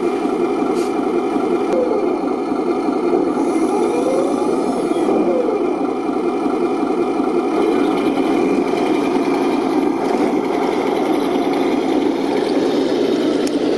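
Radio-controlled toy tank running, its sound unit playing a steady, idling-style engine drone, with a few brief pitch wavers about four to five seconds in.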